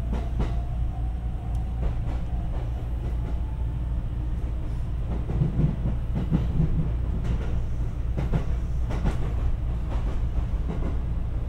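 Ride in a JR West 227 series 500 'Urara' electric train's motor car as it pulls away: a steady low running rumble with a faint motor whine gently rising in the first few seconds, and a few clicks and knocks between about five and nine seconds in. The departure is quiet for a motor car.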